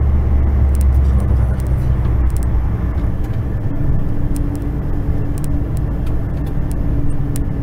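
Truck engine running and road noise heard inside the cab while driving, a steady low drone. A steady humming tone joins about halfway through, with scattered light ticks.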